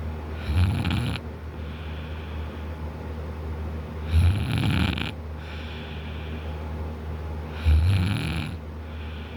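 A man snoring loudly in deep sleep, lying on his back with his mouth wide open. Three fluttering snores come about three and a half seconds apart, with a softer breath between each.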